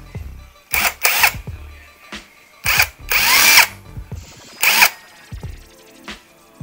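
Cordless impact wrench run free with no socket fitted, in short trigger pulls: the motor whirs up and winds down five times, one pull held longer near the middle. The tool is being run to check that its battery works.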